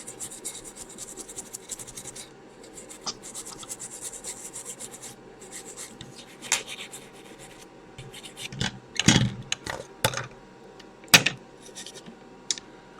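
Scrubbing the freshly soldered area of a circuit board clean: a fast run of scratchy rubbing strokes for about five seconds, then a few separate clicks and knocks.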